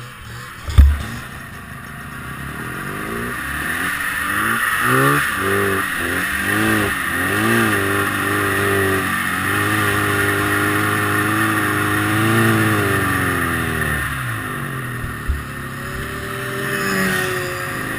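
1974 Rupp Nitro 340 snowmobile's two-stroke engine running again after stalling from a pinched gas line, revved up and down in quick blips, then held at a steadier high rev before dropping back near the end. A heavy thump sounds about a second in.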